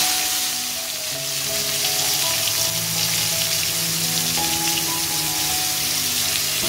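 Turmeric-and-salt-coated eggplant pieces frying in hot oil in an aluminium karai, a steady high sizzling hiss that starts suddenly at the outset.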